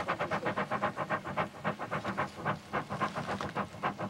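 Hand-worked clay bowl bellows puffing air into a smith's furnace in a fast rhythm, about five or six puffs a second, slowing slightly and growing less even partway through.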